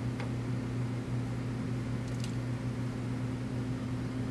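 Steady low machine hum, as of a fan or ventilation unit, with two faint clicks, one just after the start and one about two seconds in.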